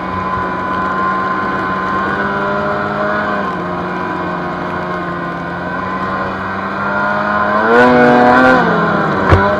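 Snowmobile engine heard from on board, running at a steady pitch through deep powder. Near the end it revs up briefly and eases off, and a sharp click follows just before the end.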